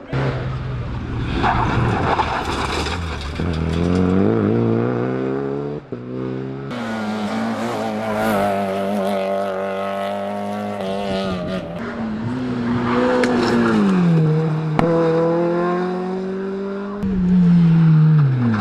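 Rally car engines accelerating hard along a tarmac stage, the revs rising through the gears and dropping on each lift. There are a few sharp cracks, and near the end a louder car passes with the pitch falling.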